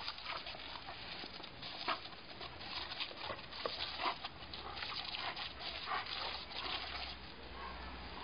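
German Shepherd snapping and biting at the jet from a garden hose nozzle: irregular sharp snaps and splashes over the steady hiss of the spray.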